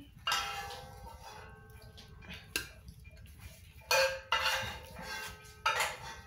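Stainless steel plate knocking and clinking several times as it is handled, each knock ringing briefly.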